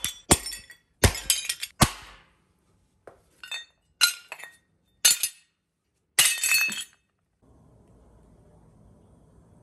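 A hammer striking a cast aluminum electric motor end bell on concrete: three sharp strikes in the first two seconds as the casting cracks apart. Then aluminum fragments clink against each other several times over the next five seconds, with nothing after about seven seconds in.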